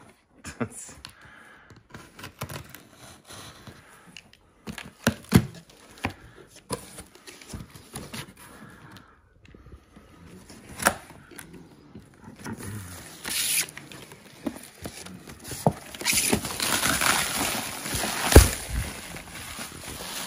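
A utility knife scraping along packing tape on cardboard, with scattered scrapes and taps as the box is opened. About two-thirds of the way through, plastic bubble wrap starts crinkling as it is handled, and this is the loudest part, with one sharper knock near the end.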